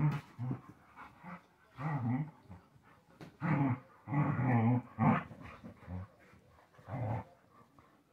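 Two dogs wrestling in a play fight, growling at each other in a string of short, rough bursts.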